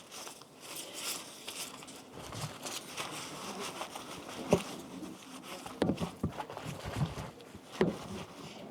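Rustling and crackling handling noise with many small clicks, broken by several sharp snaps or knocks, the loudest about halfway through and near the end.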